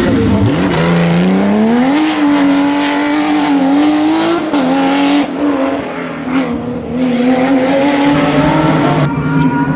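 Porsche rally car's flat-six engine at high revs under hard acceleration. The pitch climbs steeply about half a second in, then holds high and dips briefly a few times.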